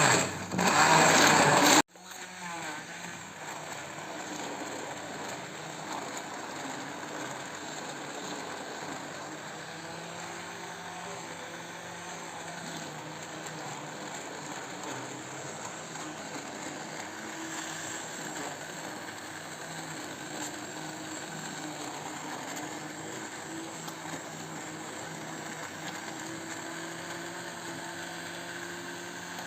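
Electric blender puréeing boiled carrots: loud for the first two seconds, then it drops off abruptly to a quieter, steady motor whir that carries on to the end.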